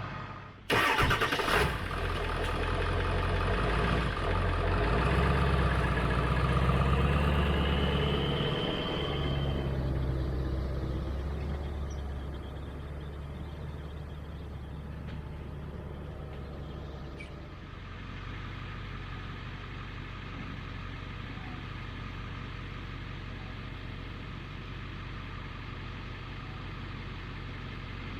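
A sharp knock about a second in, then a vehicle engine running, louder and shifting in pitch for several seconds with a short rising whine, before it settles into a steady idle.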